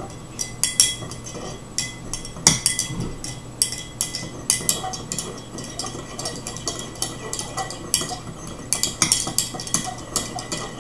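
Metal tweezers holding a penny, shaken in a glass cup of salt-and-vinegar solution, clinking and rattling against the glass: many quick, irregular clinks.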